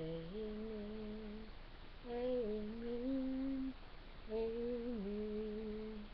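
A woman humming a slow tune in three long phrases with short breaks between them.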